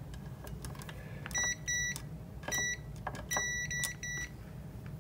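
Multimeter continuity beeper sounding in a broken run of short beeps, starting about a second and a half in, as the probe tip makes and loses contact, with light clicks of the probe against the socket between them. The beeps mean the outlet's ground is wired through to the plug's ground pin.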